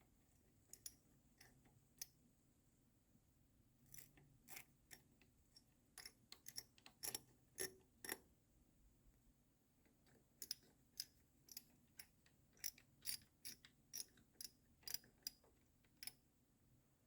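Faint, irregular light clicks and ticks, in two clusters, from small hardware being handled and fitted during reassembly of a circuit board's heatsink and fan.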